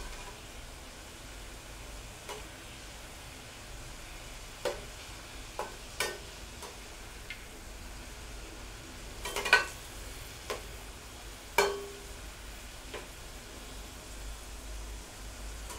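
Batter-coated okra strips deep-frying in a stainless steel kadai: a steady sizzle of hot oil, with a metal slotted spoon clinking against the pan now and then as the pieces are stirred, the loudest clinks a little past halfway.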